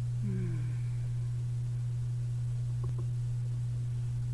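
A steady low hum, with a brief soft falling tone about half a second in.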